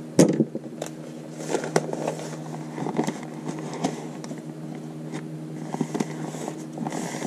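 Stiff, glue-laden notebook pages being peeled apart and turned, crackling and rustling with many small irregular ticks, over a steady low hum. A sharp knock just after the start as the plastic stencil is lifted.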